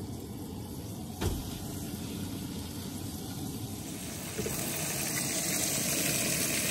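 Salmon fillet and sliced peppers sizzling in oil in a frying pan on a propane camp stove, with a single knock about a second in; the sizzle grows louder and brighter from about four seconds in.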